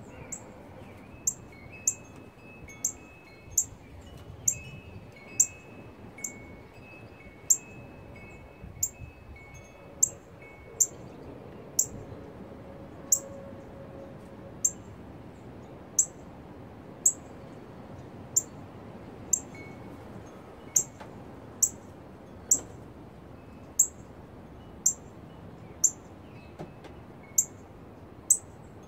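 Northern cardinal giving sharp, high chip calls, about one a second and steady throughout. Fainter short held tones come through during the first ten seconds or so.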